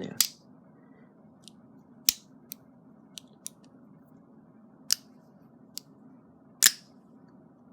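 Lever-lock automatic knife being worked in the hand: a series of sharp metallic clicks at irregular intervals from its lever and spring-loaded blade mechanism, four of them clearly louder snaps.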